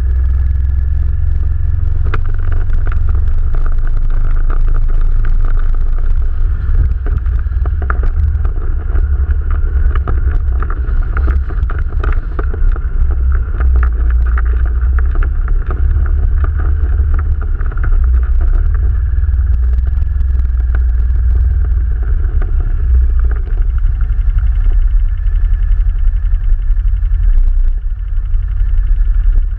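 ATV engine running steadily while riding, with frequent knocks and rattles over the whole stretch.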